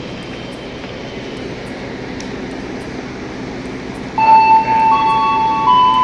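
Steady noise of a train standing at a station platform, then about four seconds in a loud train horn sounds with several held tones that shift in pitch, signalling departure.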